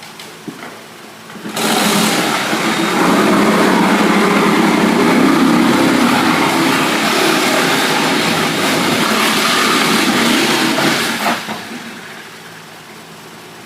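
A loud, steady engine or machine noise starts suddenly about a second and a half in and dies away about ten seconds later.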